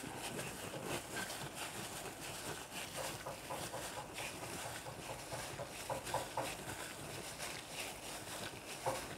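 Sliced raw buffalo meat being mixed with its spice, soy sauce and oil marinade in a bowl: faint, irregular soft mixing noises over a steady low background hiss.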